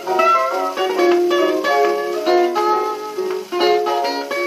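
A 1927 jazz 78 rpm shellac record playing on a turntable: a small trio of C-melody saxophone, cornet and piano, and guitar, in a steady run of notes with plucked guitar prominent.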